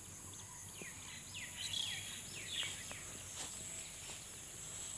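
Birds calling: a series of short, falling chirps, mostly in the first half, over a steady high hiss.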